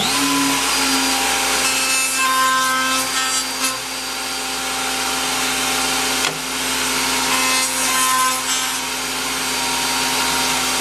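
Table-mounted router running at full speed just after spin-up, a steady high whine, while a small walnut strip's end is fed past its 1/8-inch round-over bit, adding a rough wood-cutting sound.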